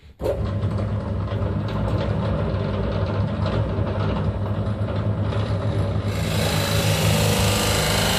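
Electric drill boring a 54 mm hole in plywood with a Forstner bit: a steady motor hum, with a loud hiss joining it about six seconds in.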